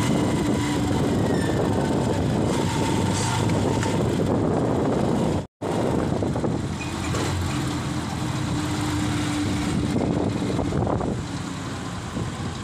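Engine running and road noise heard from aboard a vehicle moving through city traffic, with a brief dropout to silence about five and a half seconds in.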